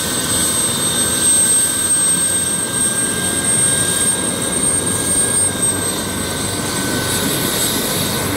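Helicopter's turbine engines running on the ground with the main rotor turning, a steady rotor noise under a constant high turbine whine.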